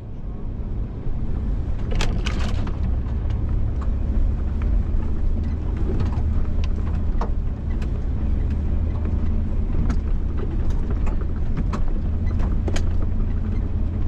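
1994 Ford Explorer's 4.0-litre V6 running steadily under way through soft snow, a continuous low drone. Scattered sharp knocks and clicks come through it, a cluster about two seconds in.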